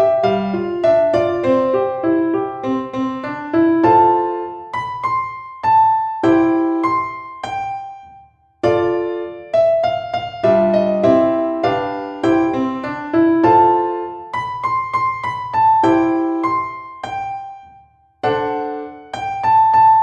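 Background music: a piano melody with struck notes in phrases, pausing briefly twice.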